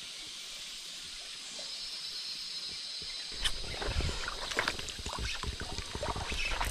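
Steady rush of a river stream, then from about three and a half seconds in, irregular splashing in the water that grows louder.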